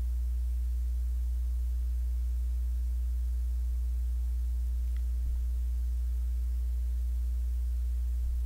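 Steady low electrical hum from the sound system, with nothing else of note over it.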